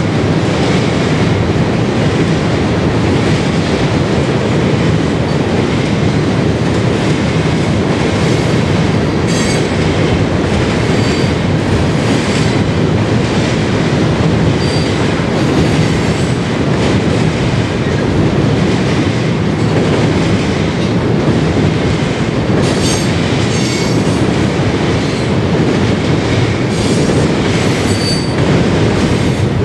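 Freight train cars rolling steadily across a railroad bridge: a continuous loud rumble of steel wheels on rail, with scattered clicks over the rail joints and a few brief high wheel squeals.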